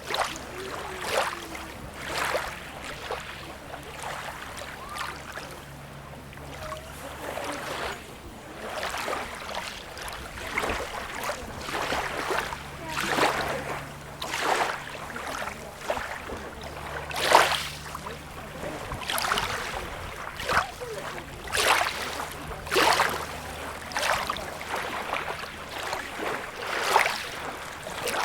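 Small waves lapping and splashing in a quick, irregular string of short splashes, about one or two a second, over a faint steady low hum.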